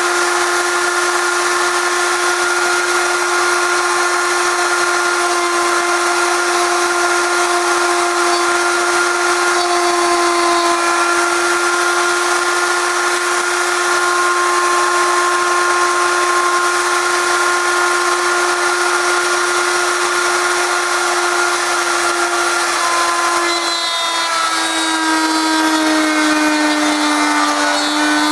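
Electric router mounted in a router table, running steadily while cutting a recess in wood: a constant high whine with hiss. Near the end the pitch drops slightly and then holds.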